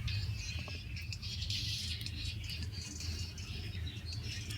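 Thin, tinny audio from a pair of repaired in-ear earphones playing near the microphone. It is mostly high-pitched and comes in irregular patches over a low steady hum, and it shows that both earbuds are working again.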